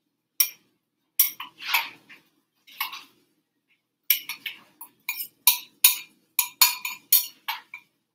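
Metal utensil clinking against a small glass bowl while stirring a beaten egg mixture: a few scattered clinks, then from about four seconds in a quick run of about four to five clinks a second.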